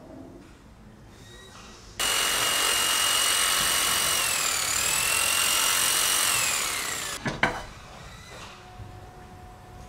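Electric angle grinder with a toothed wood-cutting blade starts abruptly about two seconds in and runs at high speed with a high whine. The whine dips briefly in pitch midway, then falls and cuts off about five seconds later. A sharp clack follows.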